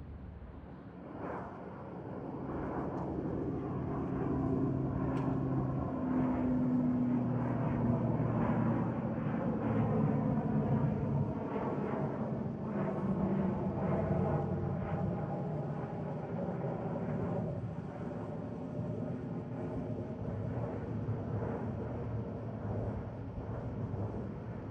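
ATR 72-600 freighter's twin Pratt & Whitney PW127M turboprops at takeoff power: a steady low propeller drone with a broad rushing noise. It grows louder over the first several seconds, is loudest around a third of the way in, then slowly fades as the aircraft passes and climbs away.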